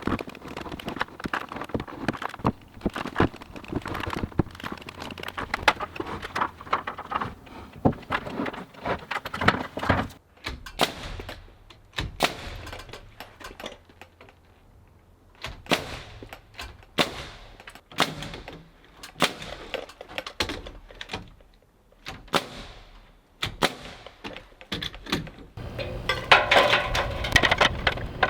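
Repeated sharp knocks and clicks of building work, irregular and several a second, easing off briefly about halfway through. A denser pitched sound joins near the end.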